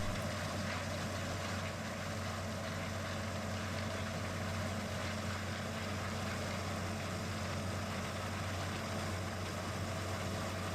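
John Deere 8820 Titan II combine running steadily, a constant low drone with an even mechanical noise over it.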